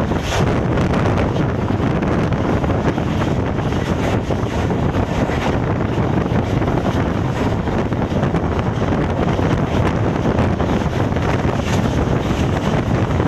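Wind rushing over the microphone at the open window of a moving passenger train, over the train's steady running rumble on the track.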